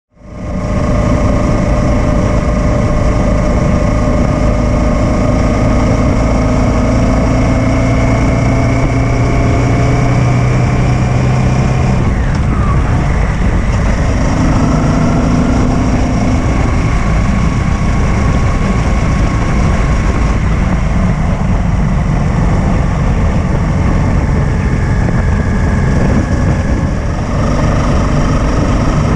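Honda Africa Twin motorcycle riding along a road, its engine running steadily under wind rush on a fairing-mounted camera. The engine pitch climbs slowly for the first dozen seconds, then drops and settles.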